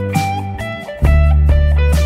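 Guitar playing a single-note blues-scale solo line (G major / E minor pentatonic with the added blue note) over a G major backing track with a steady bass line; the bass steps to a new, louder note about a second in.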